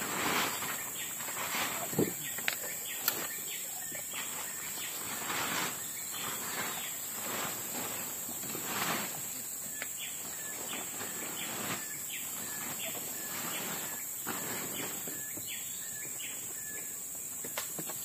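Rustling and scraping with a few sharp knocks about two to three seconds in, as a makeshift forest hut is dismantled, over steady insect buzzing. In the second half a short high chirp repeats steadily.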